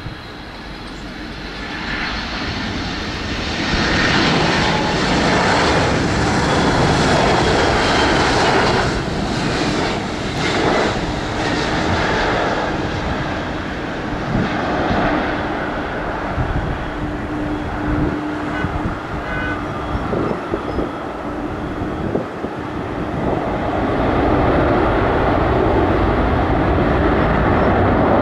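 Boeing 767-300 freighter landing: jet engine noise building about four seconds in as it comes close and touches down, then swelling again near the end as it rolls down the runway.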